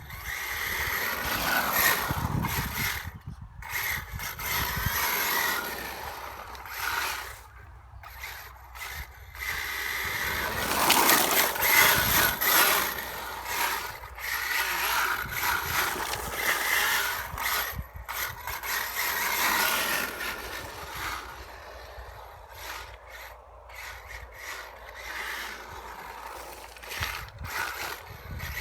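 HPI WR8 Flux electric RC rally car driving on a wet road: its brushless motor and tyres on the wet tarmac swell and fade several times as it speeds up, slows and passes.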